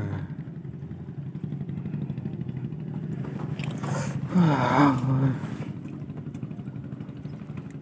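A small engine running steadily, a low drone with fast even pulsing. About four seconds in, a person's voice is heard briefly over it.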